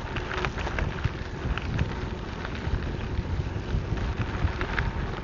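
Wind buffeting the microphone on a moving gravel bike, over the rumble of tyres rolling on a dirt and gravel trail, with scattered ticks and rattles throughout.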